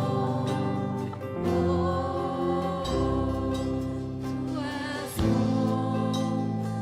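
Christian worship song: a band plays sustained chords, with voices singing long held notes over them. The chords change a few times.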